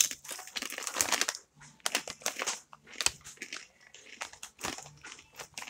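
Crunchy corn chips being bitten and chewed close to the microphone, in a run of irregular crisp crunches, with the foil chip packet crinkling as a hand reaches into it.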